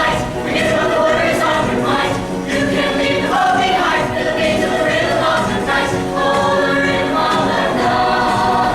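A choir singing in harmony, holding chords that change every second or so.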